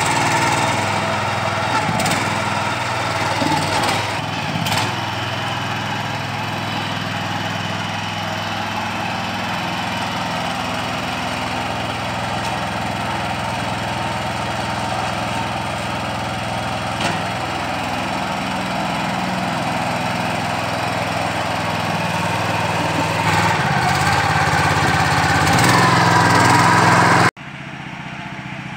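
Engine of a walk-behind mini power tiller running steadily under load as its rotavator blades churn soil. It gets somewhat louder over the last few seconds, then cuts off abruptly near the end.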